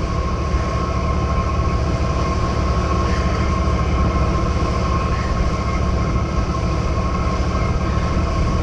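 Boat engine running steadily: a constant low rumble with a steady whine above it.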